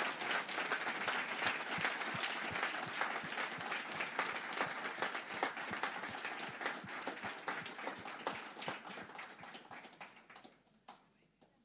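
Audience applauding, a dense run of clapping that fades and dies away about ten seconds in.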